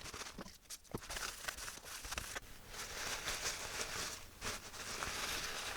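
Sanding block rubbing corrosion off a metal RF shield: uneven scratchy strokes mixed with small clicks and knocks.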